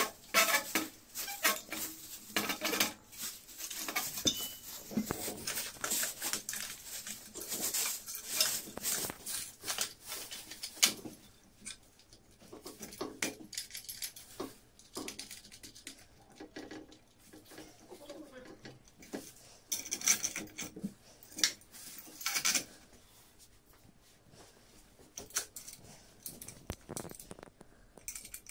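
Metal clinking and knocking as a conductor marking light is handled and clamped onto a stranded aluminium conductor: its steel chain and aluminium clamp parts rattle against each other. A busy run of clicks and clatters for about the first ten seconds, then scattered knocks with quiet gaps.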